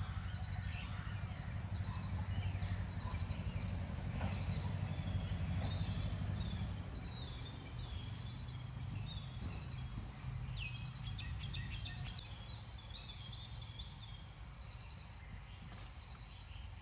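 Outdoor ambience of birds chirping in short, high calls that come and go, over a low steady rumble that eases about halfway through.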